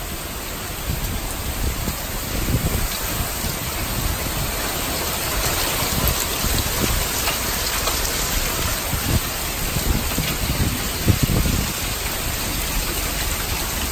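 Heavy wind-driven rain pouring down in a steady, dense hiss, with gusts of strong wind buffeting the microphone in low rumbles.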